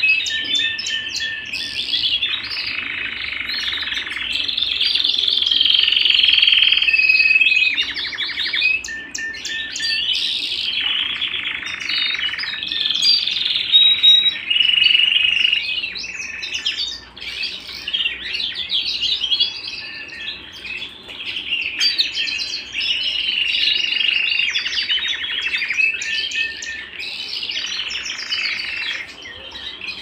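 Domestic canaries singing: a continuous song of rapid trills and rolls mixed with held whistled notes, the phrase changing every second or two.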